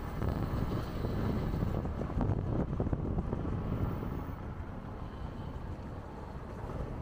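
Steady wind noise buffeting a microphone moving at road speed, with road noise underneath.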